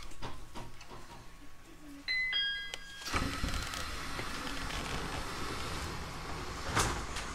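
Train door-closing chime: a few short electronic tones stepping between pitches, followed about a second later by a sudden, steady rush of noise with a sharp knock near the end.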